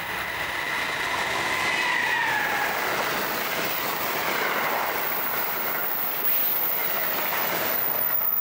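Amtrak Northeast Regional train hauled by an HHP-8 electric locomotive passing at track speed. The locomotive's whine drops in pitch about two seconds in as it goes by, followed by the steady rushing noise of the passing coaches until the last car clears near the end.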